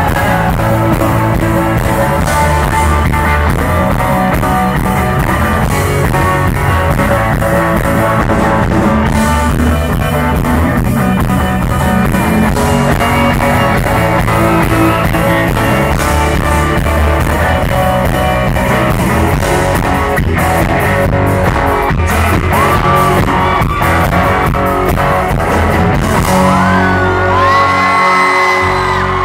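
Rock band playing live at a steady loud level: electric guitars, bass and drums, with a singer. Near the end, whoops rise from the crowd over the music.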